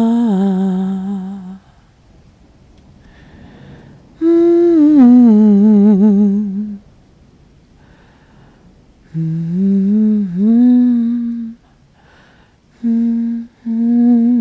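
A woman humming a slow lullaby in long, wavering held notes, in several phrases with short pauses between them.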